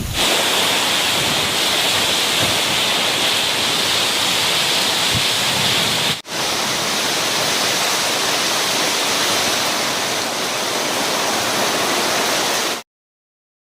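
Steady rushing water, broken by a split-second cut about six seconds in and stopping abruptly near the end.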